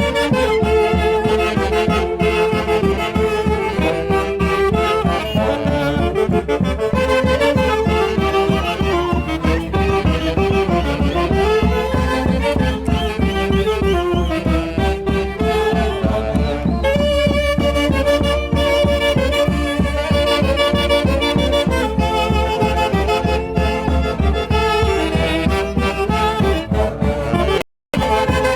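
A live band playing Peruvian Santiago festival music: wind instruments carry the melody over a steady, driving beat. The audio cuts out briefly near the end.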